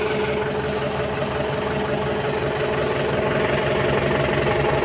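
Kubota M9540 tractor's diesel engine running steadily at idle.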